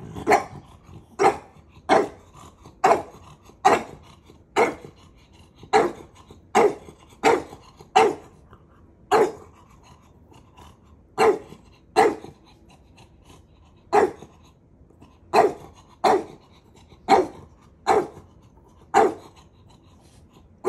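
French bulldog puppy barking over and over, about one short bark a second with a few brief pauses: play barks aimed at trying to get an older dog to play.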